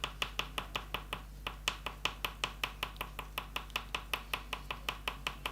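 Oil pastel stick tapped quickly on paper to make dots: a steady, even run of light taps, about five or six a second.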